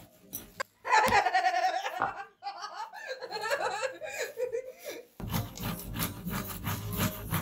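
A woman laughing heartily for a few seconds, then a rapid scratchy scraping of a tomato being grated on a metal box grater.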